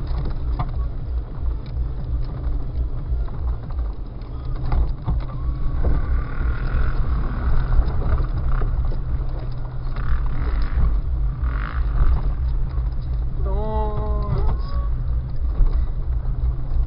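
Jeep Cherokee XJ's engine droning low and steady as it drives slowly along a bumpy dirt trail, heard from inside the cab, with small knocks and rattles from the jolting ride.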